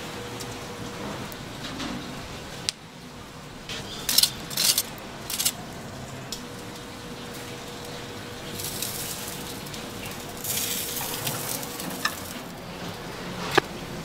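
Cooking food sizzling, with a few clatters and knocks of metal utensils and a couple of louder stretches of hissing in the second half. A faint steady hum runs underneath.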